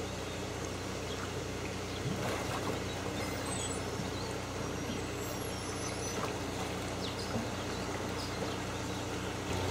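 A steady low mechanical hum over a constant background hiss, with a few faint clicks.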